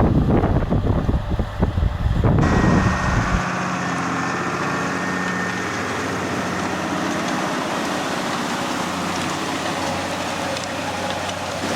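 Gusty wind buffeting the microphone over machinery, then about two and a half seconds in the sound switches abruptly to a farm tractor's diesel engine running steadily at an even pitch.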